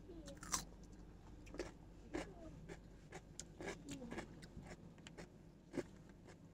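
Someone chewing raw cucumber close to the microphone, with irregular faint crunches and clicks, a few louder ones, over a low steady hum.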